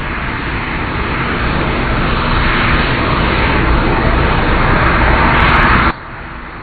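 Jet engine noise from the Shuttle Carrier Aircraft, a modified 747 with four Pratt & Whitney engines, growing steadily louder, then cut off abruptly about six seconds in.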